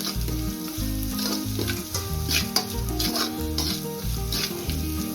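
Chopped small onions frying in oil in a kadai, a light sizzle with short scraping strokes of stirring. Background music with a steady, repeating bass line plays underneath.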